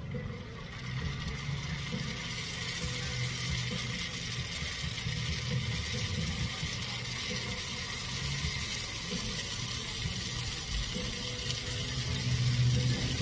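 Crab rangoons sizzling as they are laid into hot oil in a cast iron skillet, oil that may be a little too hot. The sizzle comes in about half a second in and builds, over a low rumble.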